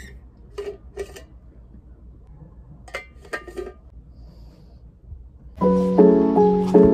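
A few light clinks and knocks with a brief metallic ring as a pink insulated tumbler is handled, twice near the start and a quick cluster about three seconds in. Loud piano music starts about five and a half seconds in and takes over.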